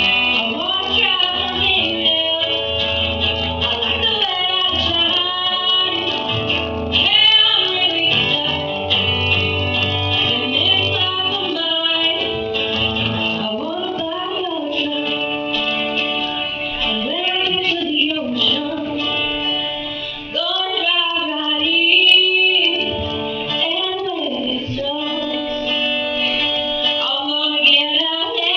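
A young woman singing a folk-country song, accompanied by a strummed acoustic guitar.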